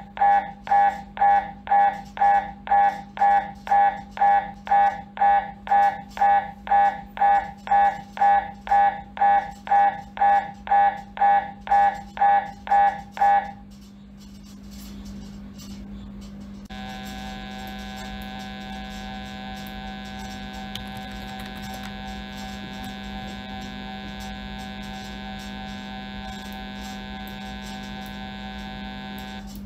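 MRI scanner gradient coils during a lumbar spine scan, pulsing loudly about twice a second, all over a low steady hum. The pulsing stops about halfway through, and a few seconds later a steady continuous buzzing tone starts as the scanner moves to its next imaging sequence. The buzz cuts off near the end.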